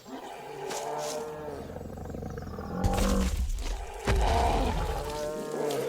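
Film sound design of dinosaurs roaring and growling as a Triceratops and a T-Rex clash, with deep low rumbles that surge about three seconds in and again about four seconds in.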